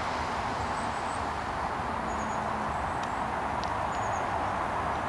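Steady noise of a steam-hauled train running away into the distance, with a few brief high bird chirps over it.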